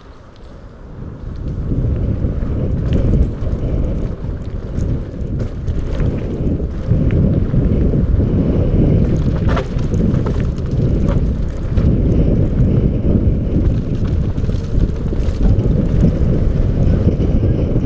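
Wind buffeting an action camera's microphone on a mountain bike descending a dirt trail at speed, a heavy rumble mixed with tyre noise that builds over the first two seconds as the bike picks up speed. Occasional sharp clicks and rattles from the bike run through it.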